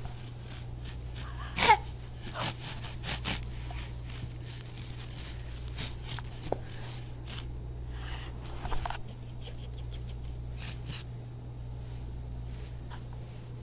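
Infant's breathy vocal noises close to the microphone, with a short squeal about two seconds in. Scattered clicks and knocks sound over a steady low hum.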